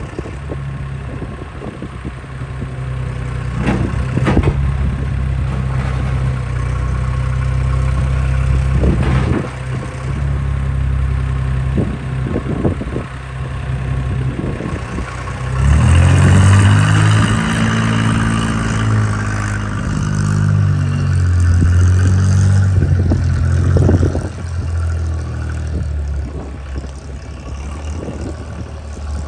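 Bernards W1050C compact wheel loader's engine running steadily, with a few knocks from the loader, then revving up about halfway through as the loader pulls away and drives off, the engine note climbing and then settling to a steady run.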